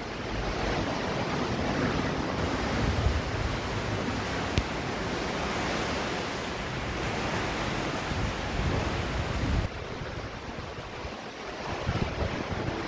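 Ocean surf breaking and washing against a stranded ship's rusted steel hull, a steady rushing wash with low rumbling, eased suddenly about ten seconds in. Wind buffets the microphone.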